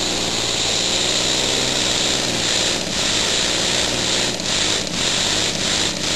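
Homemade elbow engine running fast on compressed air: a steady hiss of exhausting air over a rapid buzzing rhythm from the cylinders, with a few brief dips in the second half.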